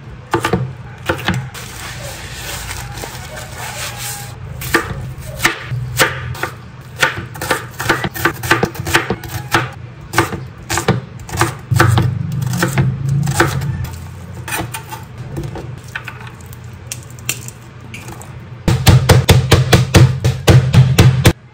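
Chef's knife chopping vegetables on a cutting board: irregular knocks of the blade against the board. Near the end it turns into a fast, loud run of chops as garlic is minced.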